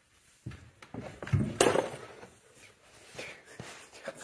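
Junk being handled and shifted in an attic: scattered knocks and rustling, with one louder rustling clatter about a second and a half in.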